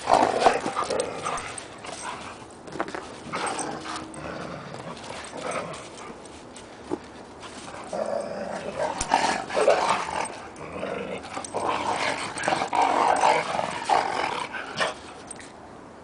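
Two dogs, a Siberian husky and a smaller red-and-white dog, growling and vocalizing at each other in rough play. The sounds come in irregular bursts, loudest at the start and again through the second half, easing off near the end.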